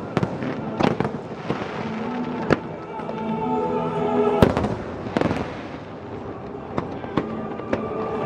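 Aerial fireworks bursting: a string of sharp bangs with crackling between them, the loudest about four and a half seconds in, over background music.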